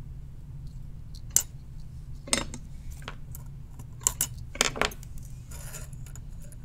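Flush cutters snipping the wire leads of through-hole components on a circuit board: about half a dozen sharp clicks, several in quick succession about four seconds in, over a low steady hum.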